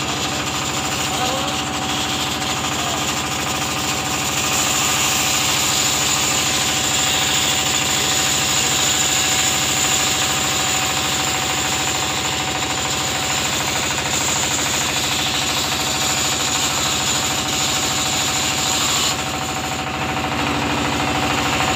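Band saw running and cutting through a teak (segun) plank: a loud, steady machine hum with a few fixed tones under a hiss. The hiss grows about four seconds in and drops away near the end.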